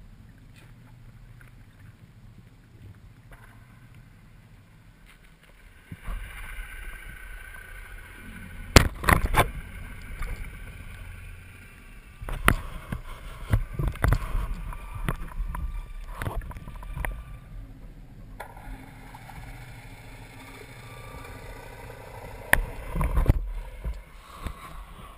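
Underwater sound of a freediver moving: a low murmur for about six seconds, then louder water rush and bubbling with several sharp knocks and clicks, the loudest about nine seconds in.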